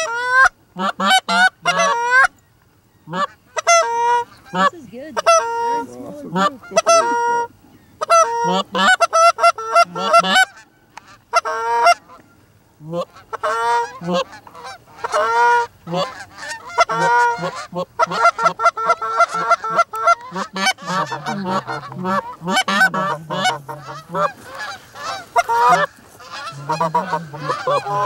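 A flock of Canada geese honking: many short, two-note honks, coming in clusters with brief pauses at first and then near-continuous through the second half.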